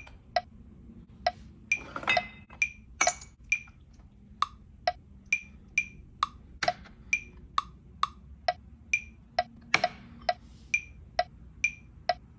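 Tea ware being tapped in a steady rhythm: about two sharp, briefly ringing clinks a second, their pitch changing from stroke to stroke.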